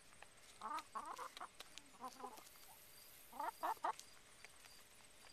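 Hens clucking in three short bursts of a few calls each, about a second in, around two seconds and again around three and a half seconds, with scattered faint clicks between them.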